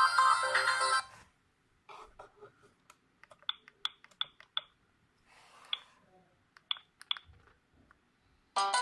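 A Sagem myW-8 mobile phone's ringtone melody stops abruptly about a second in. A series of soft clicks follows, several with a short high beep, as the phone's keys are pressed to pick the next ringtone. A new ringtone melody starts loudly near the end.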